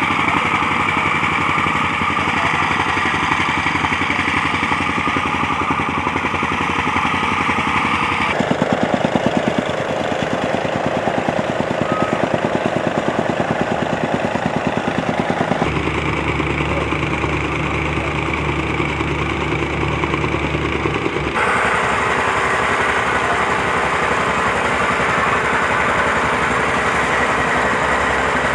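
Engine running steadily close by with a fast even pulse, its tone shifting abruptly three times.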